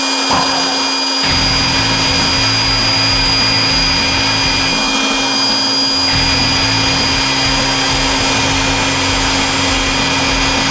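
Electric air blower running steadily with a constant whine, inflating a giant balloon.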